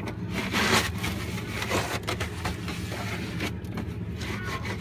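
A damp microfiber cloth scrubbed back and forth over a refrigerator surface, rubbing in repeated strokes, with a strong stroke about half a second to a second in.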